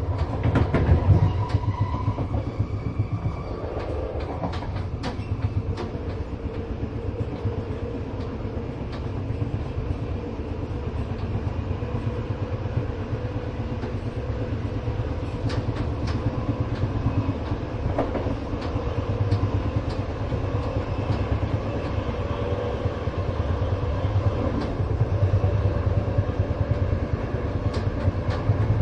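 Inside a moving passenger train: a steady low rumble of the carriage running on the rails, with scattered sharp clicks and knocks from the wheels and the car body.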